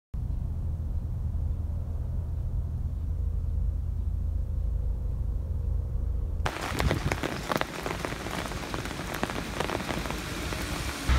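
A low steady rumble, then from about six seconds in heavy rain pouring onto a wet asphalt road, a dense hiss full of fine drop ticks.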